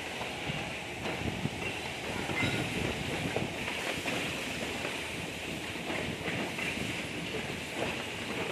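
Steady rushing background noise with faint, scattered rustles and taps.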